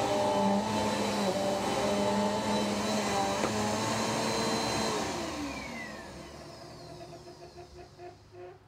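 Bissell upright vacuum cleaner running with a steady whine, then switched off about five seconds in, its motor winding down with a falling pitch and fading over the last few seconds.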